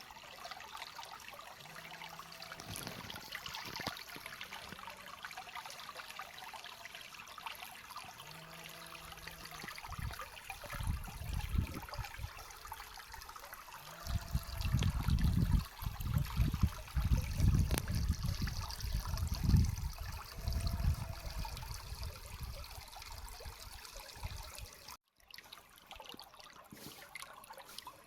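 Running water, steady trickling and rushing like a stream. Through the middle stretch, loud low rumbles come and go over it.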